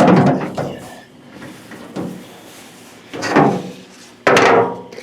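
Metal clunks and rattles from the tailgate and latch mechanism of a 1997 Dodge Ram being worked by hand, with two louder clunks in the second half, the last one sharp and briefly ringing.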